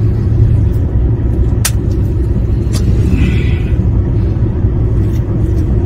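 Steady low rumble of engine and road noise heard inside the cabin of a Maruti Suzuki Brezza on the move, with a couple of short clicks in the first three seconds.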